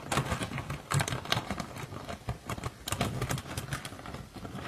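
Plastic bag crinkling and rustling in the hands as it is opened, a dense run of irregular crackly clicks.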